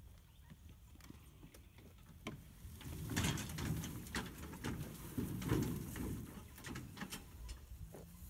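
Tow-behind dump cart, emptied with its bed still tipped up, rattling and clanking in quick irregular knocks as a golf cart pulls it over bumpy grass. The clatter starts about two seconds in and dies down near the end.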